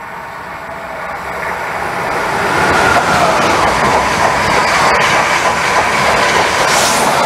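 Long-distance passenger train passing through the station at speed without stopping. The rushing noise builds over the first three seconds, then holds loud and steady, with a rapid clickety-clack of wheels over rail joints and a faint whine. A brief hiss comes near the end.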